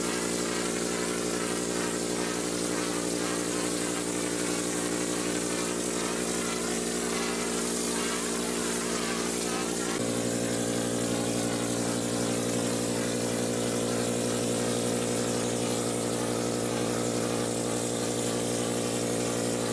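Compressed-air texture spray gun hissing as it sprays the cement-polymer coating, over the steady drone of the air compressor running. The drone changes pitch about halfway through, then cuts off suddenly at the end.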